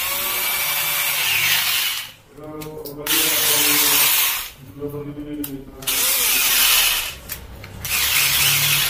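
Ultrafast 2-26 rotary hammer drill test-run in about four short bursts on the trigger, each a second or two long and cut off abruptly. The motor whirs down between bursts. It is freshly reassembled with a repaired hammering set, and runs with what is called a very good quality machine sound.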